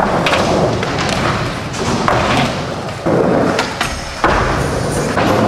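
Skateboard wheels rolling over an indoor skatepark floor, with sudden loud thuds of the board about three seconds in and again just after four seconds as the skater jumps at a handrail.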